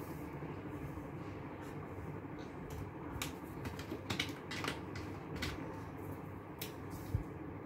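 Light plastic clicks and taps of dual-tip brush pens being handled, picked out of and set back into their plastic case, a few scattered clicks over a steady low background hum.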